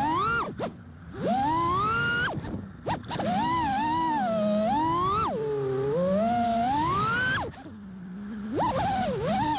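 FPV quadcopter's four Axisflying AF227 2010KV brushless motors with props whining, the pitch sweeping up and down with the throttle. Twice the whine drops away almost to nothing and then climbs back: just under a second in, and again around eight seconds in.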